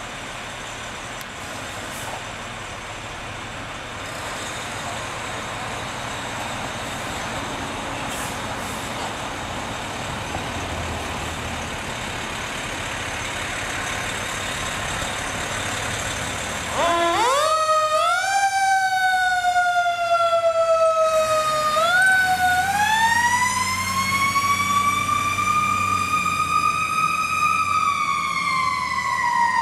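Fire engine's Detroit Series 60 diesel running as the rig pulls out, growing slowly louder. About two-thirds of the way in its siren starts: a few quick rising sweeps, then a long slow wind-up that levels off and starts to fall near the end.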